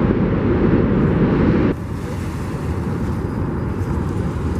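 Wind rumbling on the microphone: a dense, steady low noise that drops in level about two seconds in.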